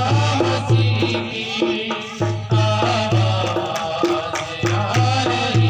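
Instrumental passage of a Hindi Christian devotional song: a steady low beat with hand-drum percussion under a wavering melody line.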